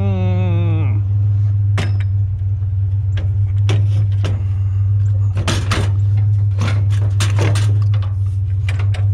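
Metal bed frames clanking and rattling as they are handled and loaded, in a series of sharp knocks that come thick about halfway through, over the steady low hum of an idling truck engine. A short falling tone sounds right at the start.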